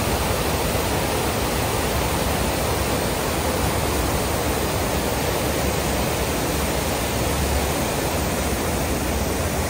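Waterfall and white-water rapids rushing steadily.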